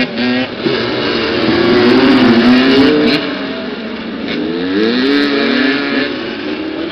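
Several motoball motorcycles revving as they ride around the pitch, their engine pitch rising and falling again and again, with more than one engine heard at once. The loudest stretch is about two to three seconds in.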